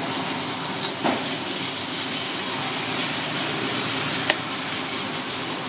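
Minced meat sizzling steadily in a hot wok as it is stir-fried, with a steel spatula scraping and clinking against the wok a few times.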